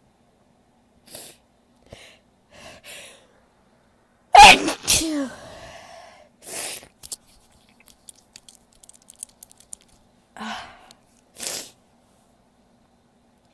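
A woman's loud sneeze about four seconds in: two sharp bursts half a second apart, the second trailing off in a cry that falls in pitch. A few short breathy sounds come before and after it.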